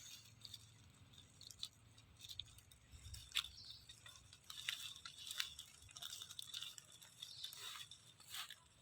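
Faint, scattered crunches and clicks of a monkey eating, chewing and biting its food.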